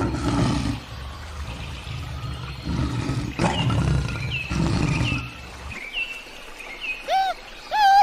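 Male lion feeding on raw meat, with low rumbling growls and chewing coming in bursts, ending a little before 6 seconds in. Short falling bird chirps repeat from about halfway, and two louder rising-and-falling calls come near the end.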